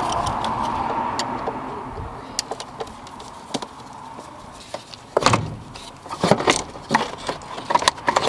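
Clicks, knocks and plastic rattles of hand work on a BMW E30's intake as the airflow meter is unclipped and pulled off the air box, loudest in a run of clunks from about halfway through, over a steady hum that fades in the first couple of seconds.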